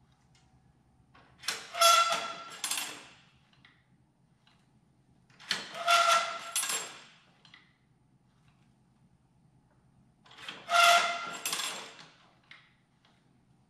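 Woodland Mills bandsaw tooth setter cycling on a steel band-saw blade: three squealing, scraping metal-on-metal strokes about four seconds apart, as the blade is moved on a tooth and the setter's handles are squeezed to bend each tooth's set.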